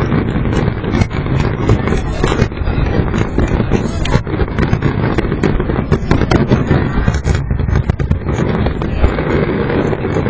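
Fireworks bursting in a dense, continuous barrage: overlapping booms and sharp cracks with no pause between them.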